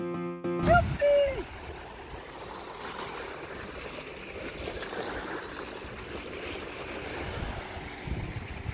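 Small sea waves washing in and out on a sandy beach, a steady rushing surf. It opens with the end of a short music jingle, and a brief pitched sound comes about a second in.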